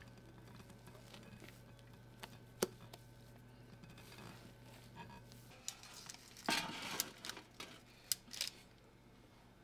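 Wire whisk folding meringue into thick matcha batter in a glass bowl: soft scraping and small clicks of the wires against the glass. About two-thirds in comes a brief, louder rustle, then a few sharp clicks.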